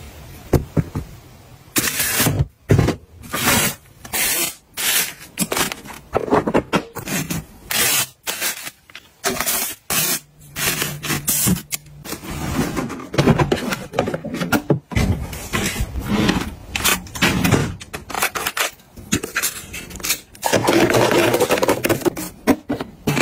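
A run of close-up handling sounds: rustles, rubs and scrapes of packaging and plastic storage containers following one another, with a longer continuous rustling stretch near the end.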